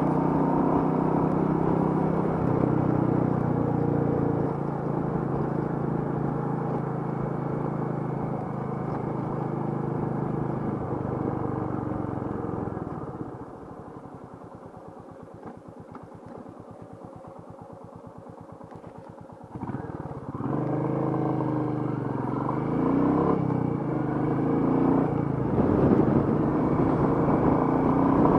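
Royal Enfield Meteor 350's single-cylinder engine running under way. A little before halfway it drops to a quiet, even idle for about six seconds. It then picks up again with the revs rising and grows louder toward the end.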